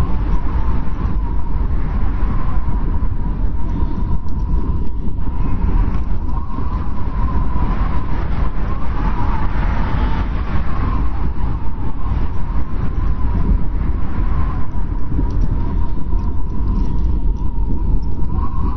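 Blizzard wind blowing steadily: a deep rumble under a wavering, whistling howl that swells and fades every few seconds.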